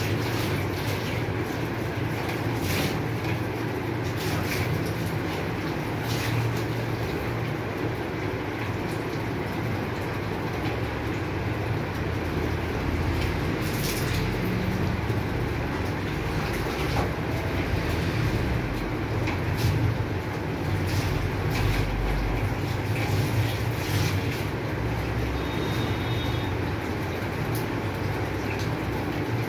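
A steady low rumble, over which water poured from a mug splashes onto a dog and into a galvanized steel bath tub, with a few sharp splashes and clatters.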